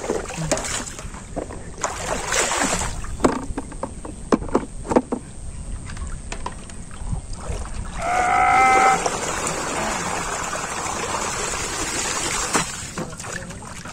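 Pond water splashing and sloshing around a clay-pot fish trap as it is handled waist-deep, with scattered knocks. About eight seconds in comes a brief high pitched call, then a steady rush of water as the pot is lifted and water streams out of it.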